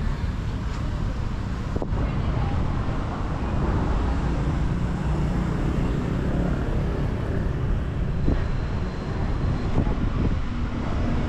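Steady outdoor road traffic noise, with wind buffeting the microphone as a heavy low rumble.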